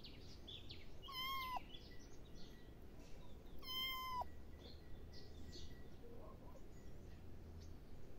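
A tabby kitten meowing twice, about two and a half seconds apart. Each meow is a short, steady, high call that drops away sharply at the end.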